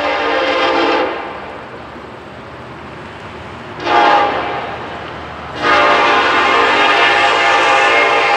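Norfolk Southern SD70ACe diesel locomotive's multi-chime air horn, blown in the grade-crossing pattern as the freight train approaches. A long blast ends about a second in, a short blast comes around four seconds, and a final long blast starts at about five and a half seconds. A low train rumble lies underneath.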